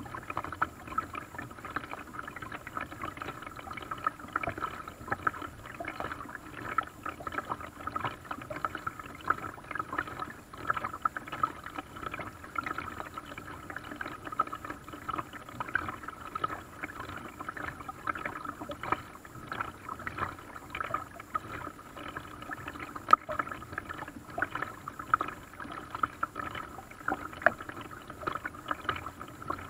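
Water splashing and lapping against the hull of a small paddled boat: a constant patter of small splashes, with one sharper tap about three-quarters of the way through.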